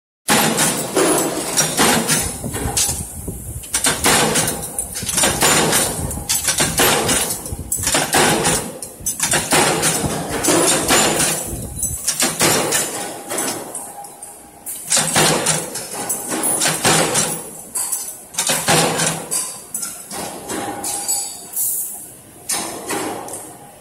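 Mechanical punch press stamping steel strip into butt-hinge parts: rapid, repeated metallic clanks of the ram striking, with short pauses between runs.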